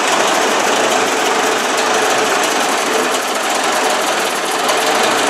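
1957 Ford 800 series tractor's four-cylinder engine running steadily and loudly through its newly fitted exhaust system, just after starting. Its carburetor still needs work.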